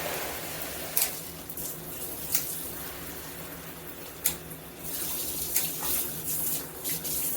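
Water spraying from a handheld shower head while its spray-mode dial is turned, with several sharp clicks. The spray weakens through the middle and picks up again about five seconds in as the setting changes the flow.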